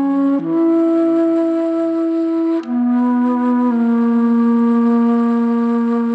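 Background music: a solo wind instrument plays a slow melody of long held notes, changing pitch three times, the last note held for over two seconds.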